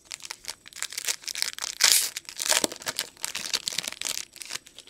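Foil wrapper of a trading-card pack crinkling and tearing as it is ripped open by hand: a quick, continuous run of crackles, loudest about two seconds in.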